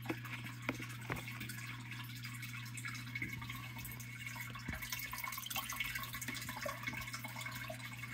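A metal spoon scooping in a plastic cup of water: a few faint clicks of the spoon against the cup and small drips of water, over a low steady hum.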